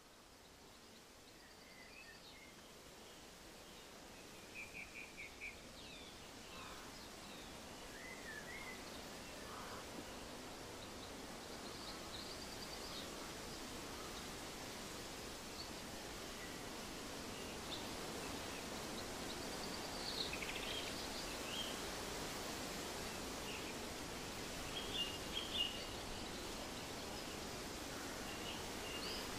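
Daytime countryside ambience: a soft steady hiss with scattered bird chirps and a few short quick trills, fading in gradually and growing louder over the first twenty seconds.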